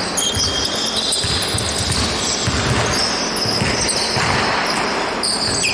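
Basketball game play: a ball bouncing on the court in irregular thuds, about two or three a second, with shoes squeaking on the floor.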